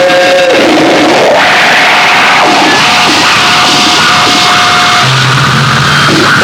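Harsh electronic noise music: a loud, dense wall of noise with steady held tones that cut in and out and swooping dips in pitch. A pair of low droning tones enters about five seconds in.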